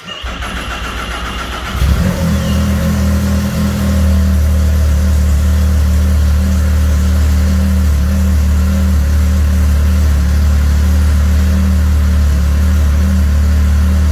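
2017 Arctic Cat ZR 7000 snowmobile's 1049 cc three-cylinder four-stroke being started: the electric starter cranks for about two seconds with a high whine, the engine catches and runs up, then settles into a steady idle.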